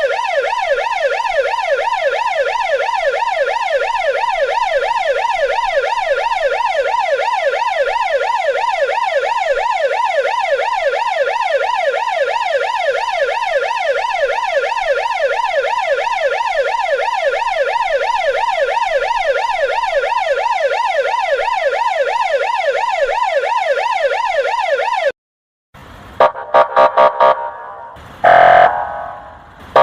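Russian police car electronic siren in a rapid yelp, a fast repeating rise and fall in pitch, which cuts off suddenly about 25 seconds in. After a brief gap, the kryakalka special signal gives five short quacking blasts in quick succession, then one longer blast near the end.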